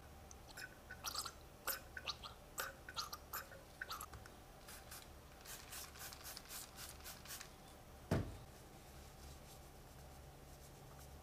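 A run of small clicks and taps from parts being handled on a workbench, thinning to softer ticks, then a single thump about eight seconds in.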